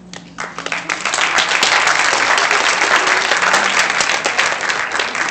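Audience applauding: clapping swells within the first second and stays loud and dense.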